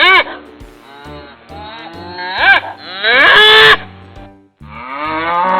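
Cow mooing, a series of long drawn-out moos that bend in pitch; the loudest is about three seconds in. Light background music plays underneath.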